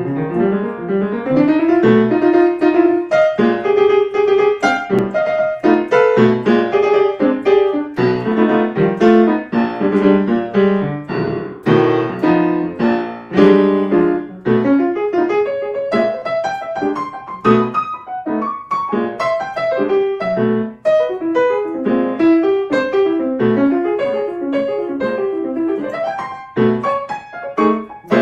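Grand piano played solo, a continuous instrumental passage of chords and melody notes.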